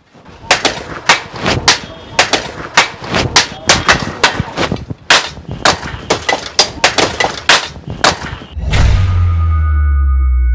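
Rapid, irregular blows of sticks and tools striking an old bicycle as it is beaten apart, about three hits a second. About eight and a half seconds in the blows stop and a deep, steady boom with a thin high ringing tone takes over.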